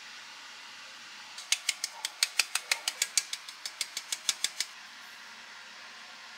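Handheld metal flour sieve tapped over and over to sift flour: a quick run of about twenty sharp clicks, some six a second, starting about a second and a half in and stopping near the five-second mark.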